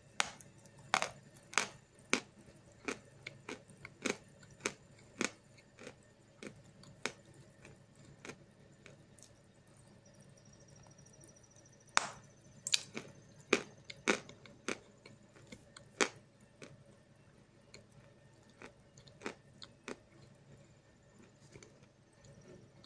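A block of Snezhok chalk being bitten and chewed, giving a run of sharp crunches, up to about two a second, in bursts with quieter stretches of chewing between.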